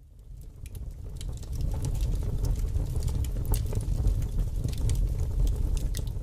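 Small wood fire burning: many sharp crackles and pops over a low steady rumble. It fades in over the first second or so.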